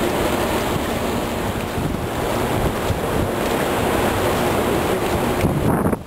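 Wind buffeting the microphone over rushing river current: a loud, steady rush of noise that drops away just before the end.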